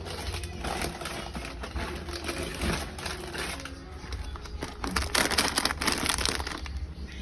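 Plastic snack packaging crinkling and rustling as it is handled, with irregular crackles that grow denser about five seconds in.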